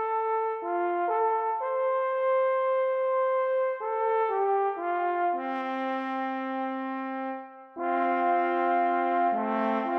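Background music of brass instruments playing sustained chords, the notes changing every second or so, with a brief break a little before the end.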